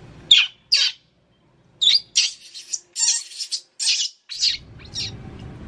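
Baby monkey squealing in a run of about ten short, shrill screeches, broken by brief silences.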